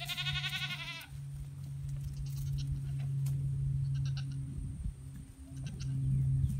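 A goat bleats once, high and quavering, for about a second at the start, with fainter short bleats later on. A steady low hum runs underneath.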